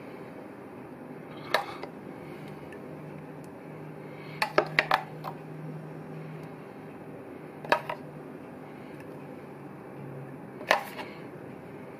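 Spoon clinking against the plate while chimichurri is spooned onto sliced steak: single sharp clinks spaced a few seconds apart, with a quick run of four in the middle. A steady low hum runs underneath.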